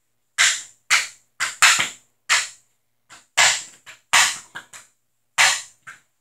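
CCM Heat street hockey stick shooting pucks off a concrete floor: a quick string of about a dozen sharp cracks as the blade slaps the floor and strikes the pucks, some loud and a few fainter.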